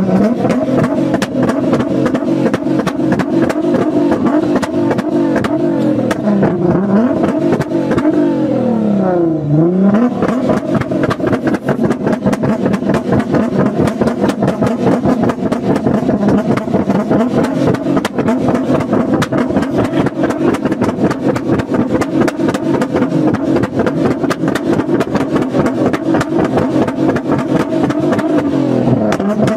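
Nissan GT-R's twin-turbo V6 revved hard on a loud exhaust, with a rapid stream of pops and crackles throughout. The revs drop and climb back three times, and in between they are held high and steady.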